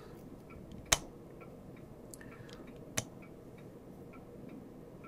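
Two sharp clicks about two seconds apart, over faint, rapid, regular ticking.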